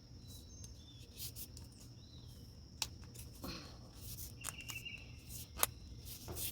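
Background crickets trilling steadily, with a few bird chirps. Over them come several short, sharp clicks and a brief rustle from handling the plastic hula hoop sections.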